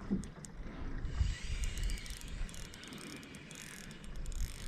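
Faint, irregular clicking of a fishing reel while a hooked fish is being played and reeled in, over a low rumble of wind and water.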